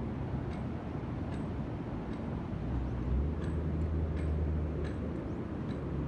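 Seaside ambience: a steady wash of surf with a low rumble underneath that swells a little midway, and a few faint ticks scattered through.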